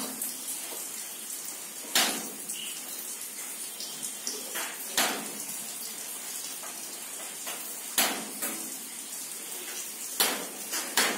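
Steady hiss of rain falling, with five sharp taps spread through it.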